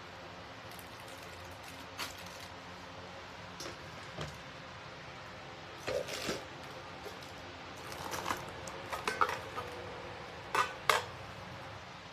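Clinks and knocks of a stainless steel steamer tray and a glass pot lid being handled and set down, with short ringing metal clanks. They come scattered through the second half, the loudest two close together near the end, over a steady low hiss.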